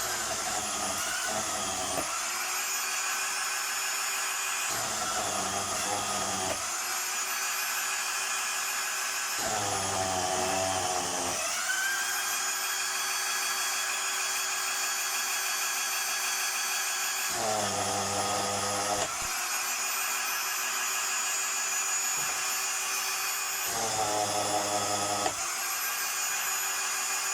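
Electric willow-planing machine running with a steady high whine. About five times the whine sags in pitch and a rough grinding joins it, as a split willow rod is fed through the cutters and shaved into a strip for basket weaving.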